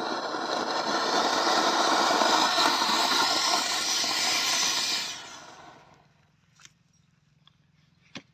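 Diwali anar (fountain firework) burning, a loud steady hiss of sparks spraying up against the base of a steel gas cylinder. The hiss fades and dies out about five to six seconds in, leaving a couple of faint clicks.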